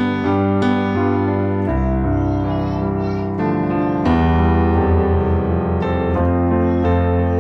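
Keyboard in a piano voice playing full two-handed chords in inversions over a deep bass, the chord changing every second or two as the hands move up and down the keys.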